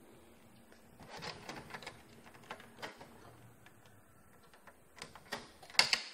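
Plastic clicks and clacks of a Ricoh Aficio MP C2500 copier's front cover being handled. Scattered knocks come about a second in, and a louder cluster near the end.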